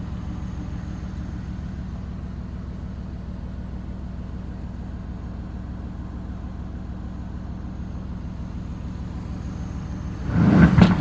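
A 2019 Aston Martin Vantage's twin-turbo V8 idling steadily, heard from inside the cabin, then revved in one short throttle blip near the end.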